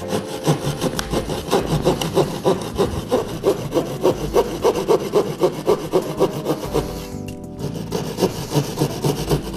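Fine-toothed handsaw cutting through gypsum plasterboard (drywall) in rapid back-and-forth strokes, about four a second, with a brief pause about seven seconds in.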